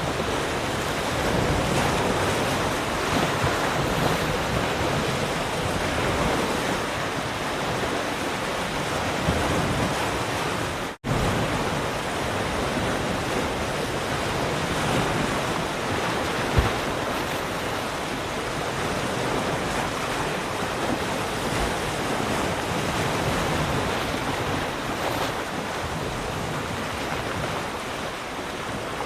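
Ocean surf: waves breaking and washing in a steady, continuous rush. The sound cuts out for an instant about eleven seconds in.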